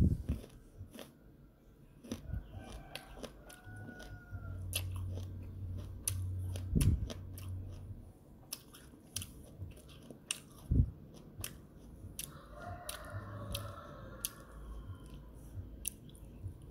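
Pencil scratching on paper in many quick short strokes, with a few louder knocks.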